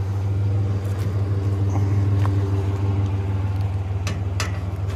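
A vehicle engine running steadily at an even pitch, with a couple of faint clicks near the end.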